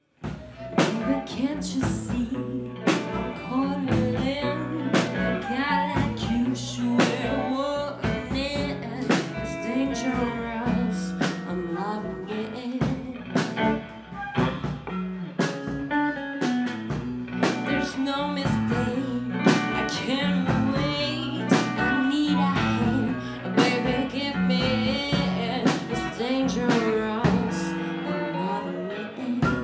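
Live blues played on guitar over a steady beat of percussion, with a voice singing.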